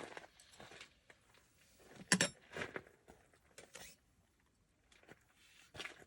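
Faint handling sounds: scattered rustles and light clicks, with one sharper clink about two seconds in.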